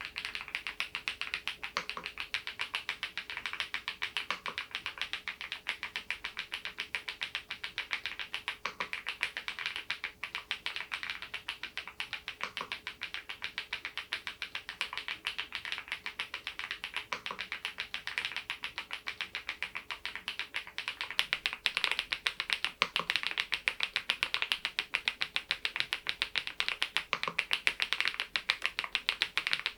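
Steady, fast typing on a Geekstar GKG87R tenkeyless mechanical keyboard fitted with stock HMX Mongdol linear switches: a continuous patter of keystrokes. It gets a little louder about two-thirds of the way through.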